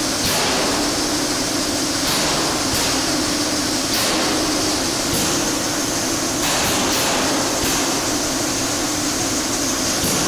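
Air-driven paint circulation pumps running: a steady mechanical hum with short hisses every second or so, at irregular intervals.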